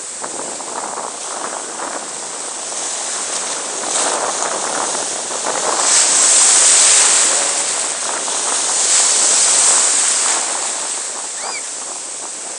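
Ocean surf breaking and washing around in shallow water, a steady rush that swells loudest about six seconds in and again near ten seconds.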